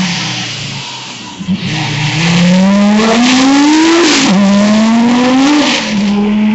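Historic rally car driven hard on tarmac. The engine note sags about a second in as the car turns, then climbs hard, with two upshifts about four and six seconds in. Tyres squeal as the car slides through the bend.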